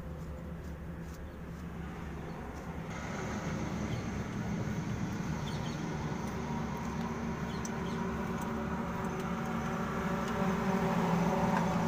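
Steady hum of a running engine, growing louder about three seconds in, with a few light metallic clicks from the alternator being handled on its mounting bracket.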